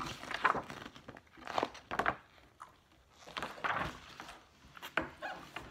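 Paper rustling and being handled, with scattered small clicks and taps, as a coloring page is set down and the markers are picked up.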